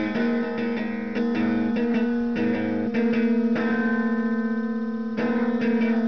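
Electric guitar played through a small practice amplifier: single notes picked in a run, then held notes with a fast, even pulsing picked on them.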